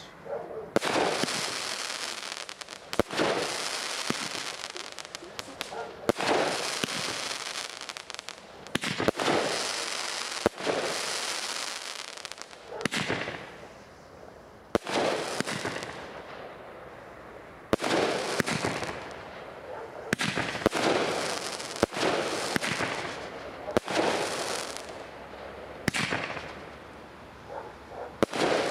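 A 25-shot Obsession firework cake firing: a sharp bang every one to three seconds, about fifteen in all, each followed by a hissing tail that lasts a second or two.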